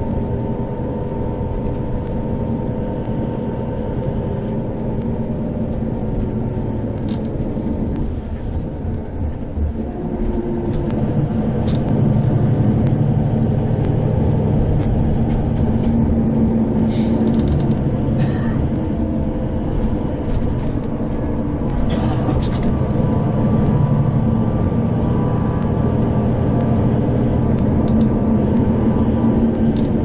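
Bus engine running and tyres rumbling on the road, heard from inside the cabin while driving, getting louder about ten seconds in. A few short clicks sound later on.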